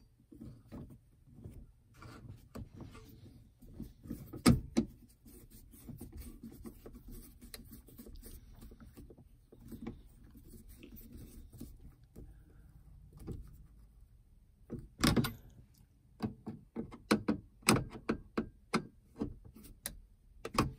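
Screwdriver driving small screws into the plastic overhead map-light console of a Honda Pilot: scattered clicks and knocks of metal on plastic, with a loud knock about four seconds in, another about fifteen seconds in, and a quick run of clicks near the end.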